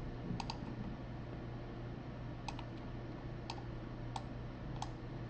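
Computer mouse clicking about seven times, including two quick double clicks, over a low steady hum.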